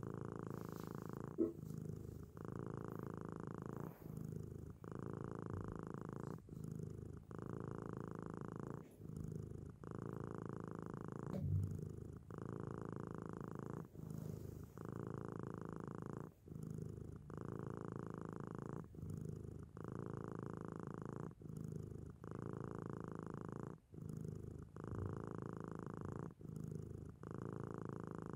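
Cat purring steadily, with short breaks every second or two as it breathes in and out.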